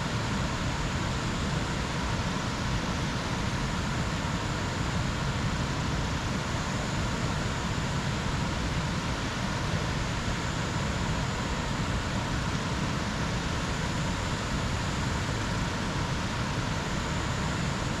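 Jungle ambience: a steady, even rushing noise with a faint, thin high tone that comes and goes.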